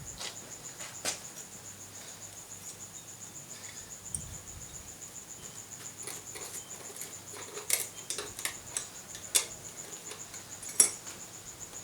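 Scattered light clicks, taps and rustling of parts being handled while setting up a gas forge's burner, loudest in a few sharp taps over the second half, over a steady high pulsing trill.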